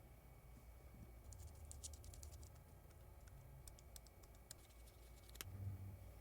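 Faint, scattered light clicks and taps of small hard plastic and metal parts being handled during the unboxing of a smartphone photography kit. There is one sharper click and a soft low bump about five and a half seconds in.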